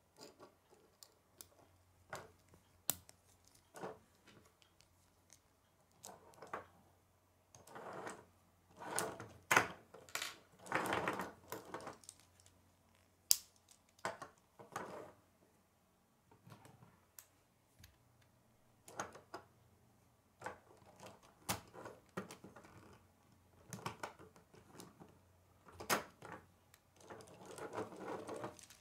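Plastic K'nex pieces clicking and snapping together as they are handled and assembled: irregular sharp clicks, with a few longer stretches of rattling clatter.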